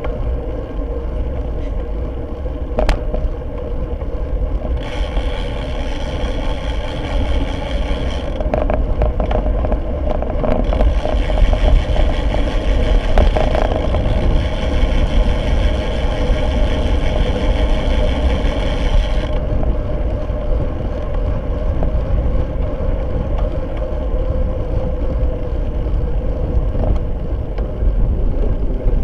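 Wind rush and road rumble from a road bike ridden at race speed, picked up by a bike-mounted Fly6 camera, with a few knocks over bumps. A steady buzz with many overtones comes in about five seconds in, drops out briefly, and runs again from about ten to nineteen seconds in.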